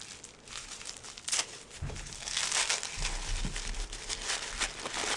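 Tissue paper being crinkled and peeled off a bath bomb by hand: an irregular crackling, sparse at first and denser and louder from about two seconds in.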